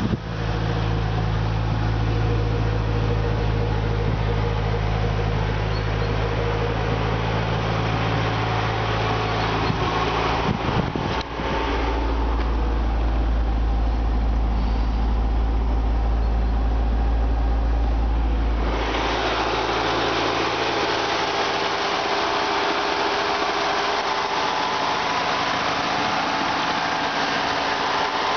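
1986 Saab 900 Turbo's turbocharged four-cylinder engine idling steadily, the idle set higher than it should be. At first it is heard at the exhaust with its new downpipe as an even engine tone. From about a third of the way in it is heard from inside the car as a deep low drone, and later in the engine bay as a brighter mechanical running.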